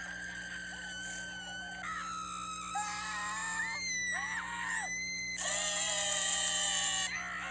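A run of high-pitched scream sound effects, one after another, each held for a second or so at its own pitch, the loudest and shrillest a little after the middle.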